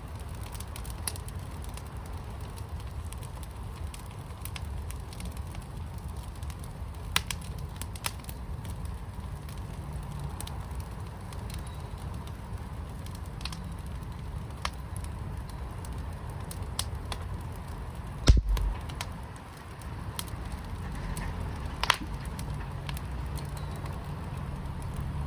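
Wood fire burning in a firepit: a steady low rumble with scattered sharp crackles and pops. A single loud thump, the loudest sound, comes about two-thirds of the way through.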